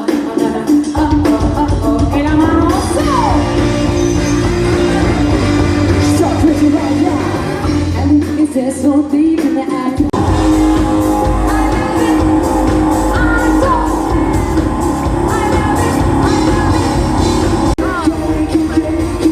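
Live pop music with singing, played loud in a large hall. The bass and drums drop out for a couple of seconds about eight seconds in, then the full band comes back in about ten seconds in.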